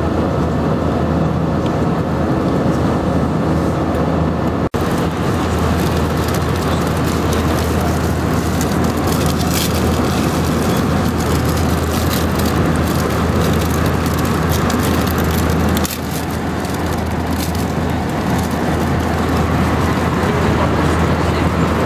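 Steady in-flight cabin noise of an Airbus A319 airliner, the engine and airflow noise heaviest in the low end. It breaks off for an instant about five seconds in and drops slightly in level at about sixteen seconds.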